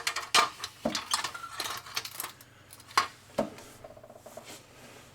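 Metal car brackets clinking and knocking against each other as they are laid down: a quick run of clinks in the first second or so, then scattered single knocks, the last about three and a half seconds in.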